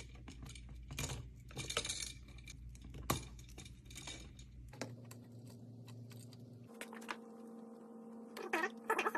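Small metallic clicks and clinks of electrical hardware being handled: an outlet, its screws and wires. Near the end there is a brief pitched sound that bends up and down.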